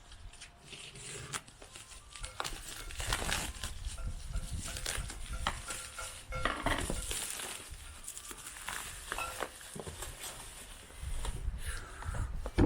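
A cardboard parcel being opened by hand: packaging and wrapping rustling and crinkling, with scattered scrapes, taps and knocks as the contents are handled.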